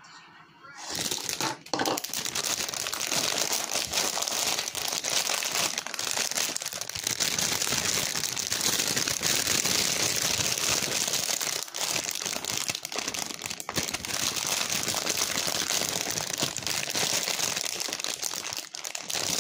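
Dense, continuous crinkling and rustling of salad being prepared by hand, starting about a second in.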